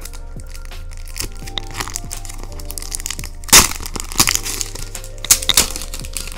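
Clear plastic sleeve crinkling and crackling as large postcards are handled, with the sharpest crackles a little past the middle. Background music with steady tones plays underneath.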